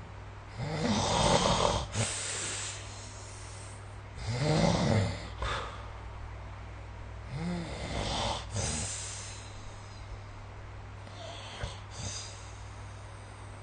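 A person snoring in their sleep: three snores about three and a half seconds apart, the third softer, then only faint breathing near the end.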